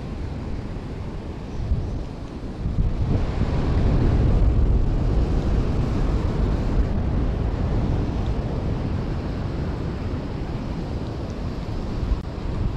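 Sea waves surging and washing on the shore, with wind buffeting the microphone. A wave swells in about three seconds in and stays loud for several seconds before easing off.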